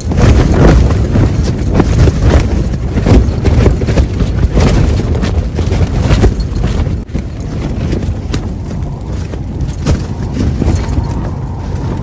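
Strong wind buffeting a tent, the fabric flapping and snapping in loud, irregular gusts over a heavy low rumble. It eases a little about seven seconds in.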